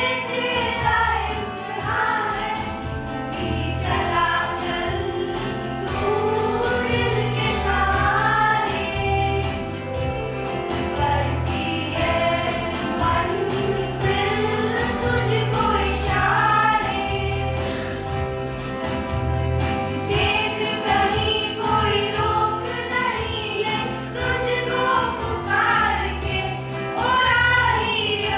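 A choir singing a song with instrumental accompaniment and a steady bass beat.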